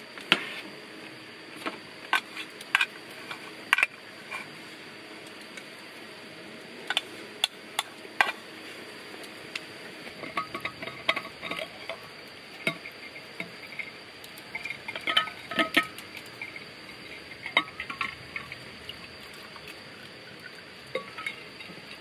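Scattered sharp metallic clicks and clinks as a stainless steel Stanley vacuum bottle and its cup-cap are handled, unscrewed and tipped to pour, with a steady high-pitched tone underneath throughout.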